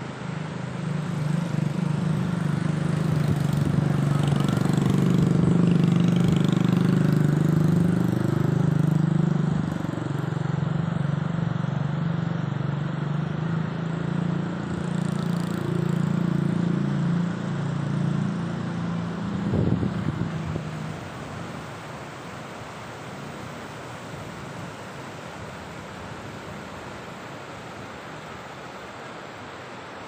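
A muddy, swollen river rushing over rocks, heard as a steady rushing noise. For the first two-thirds a motor vehicle's engine runs close by, loudest about six seconds in, rising briefly again just before twenty seconds, then fading out after about twenty-one seconds.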